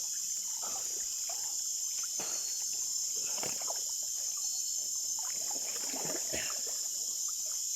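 Steady high chorus of night insects such as crickets, with scattered small splashes and water sloshing.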